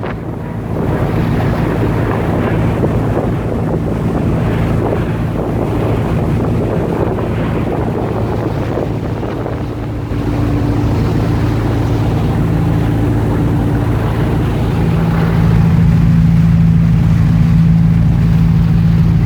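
Tour boat's engine running steadily under way, with wind buffeting the microphone and water rushing along the hull. The engine grows a little louder about halfway through.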